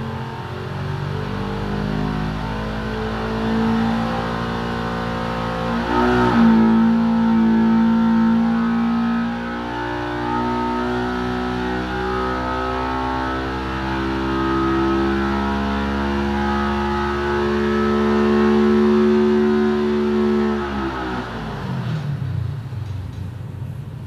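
2019 Polaris RS1's parallel-twin engine making a loaded dyno pull, revving up towards about 8700 rpm. It climbs, steps sharply higher in pitch about a quarter of the way in, runs high and loud, then drops away quickly near the end as the run finishes.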